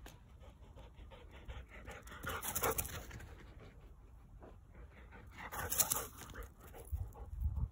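Dalmatian panting, in two bouts of quick rhythmic breaths, the second louder and close by. A brief low rumble comes near the end.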